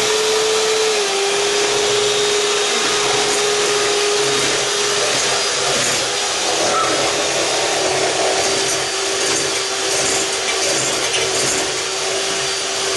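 Electric hand mixer running steadily with a motor whine, its beaters mixing a powdered cream mix in a bowl. The whine dips slightly in pitch about a second in and again around eight seconds.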